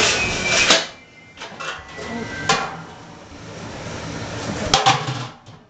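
A toddler handling a plastic kitchen-bin lid: several separate sharp knocks and clacks of hard plastic, after a loud noisy first second.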